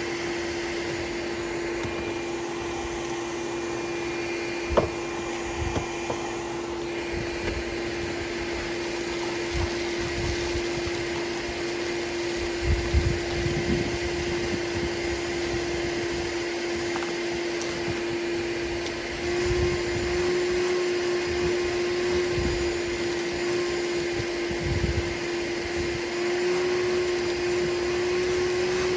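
Vacuum cleaner running steadily with a constant whine and hiss, its pitch rising slightly about two-thirds of the way through. Scattered dull knocks and rustles can be heard as it picks up debris, with one sharp click about five seconds in.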